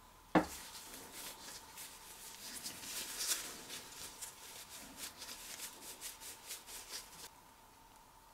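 Cloth wiping and rubbing over a small engine's cylinder block in gloved hands, in many quick irregular strokes, opened by a sharp knock about half a second in and stopping abruptly near the end.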